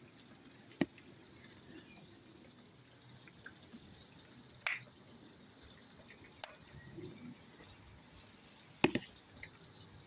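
Scattered water drops landing with sharp ticks, four in about ten seconds with a quick double near the end, over a faint background: rain that has eased to drips.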